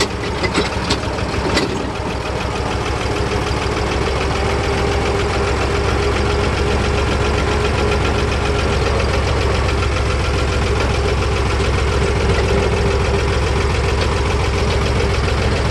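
The diesel engine of a Fendt Farmer 2 DE vintage tractor runs steadily as the tractor drives slowly, heard from the driver's seat right behind the bonnet. A few sharp knocks sound in the first couple of seconds.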